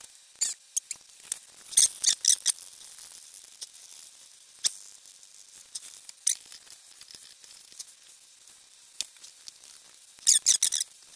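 Small crinkles and clicks from gloved hands working on a foil-covered bench: nitrile gloves and aluminium foil crackling, and a wooden stick stirring epoxy in a plastic cup. The handling noise bunches into short flurries about two seconds in and again near the end.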